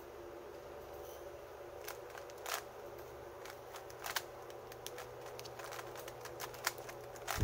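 Plastic 3×3 Rubik's cube being turned by hand: irregular clicks and clacks of its layers snapping round, a few louder than the rest, over a faint steady hum.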